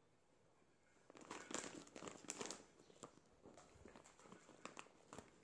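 Clear plastic bag of dried pig ear treats crinkling as a hand rummages inside it, starting about a second in and loudest soon after, with scattered light clicks from the treats and bag.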